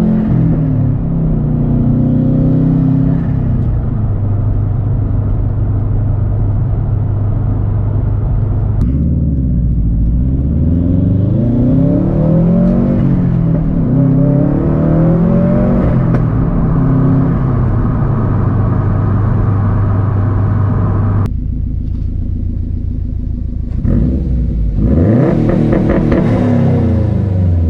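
2013 Subaru WRX STI's turbocharged flat-four engine running loud through a Tomei Expreme Ti turbo-back exhaust while driving. The note holds steady at cruise, swings up and down with the throttle, drops off suddenly about two-thirds of the way through, then revs up again near the end.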